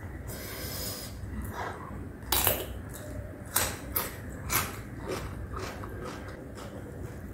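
Close-miked chewing with the mouth closed, with a few sharp mouth clicks and smacks, the loudest a little over two seconds in and three more between three and a half and five seconds in.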